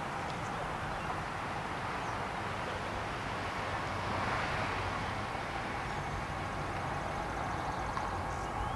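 Steady outdoor background noise with a low hum underneath, swelling slightly around the middle.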